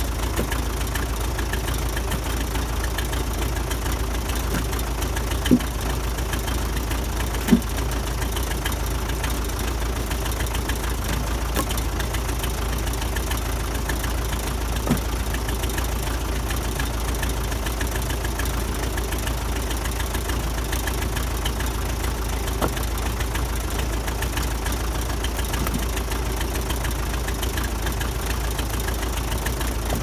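Case 580D backhoe's four-cylinder diesel engine idling steadily while split firewood is tossed into its steel loader bucket, the pieces landing with a few short wooden clunks, the loudest two about five and seven seconds in.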